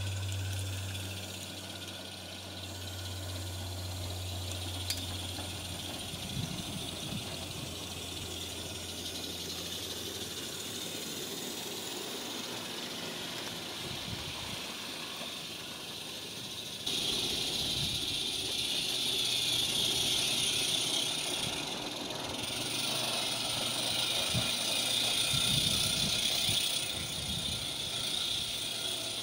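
A 16 mm scale live-steam garden railway locomotive running with a train of coaches: a steady hiss of steam with the rattle of wheels on the track. The hiss gets suddenly louder a little past halfway.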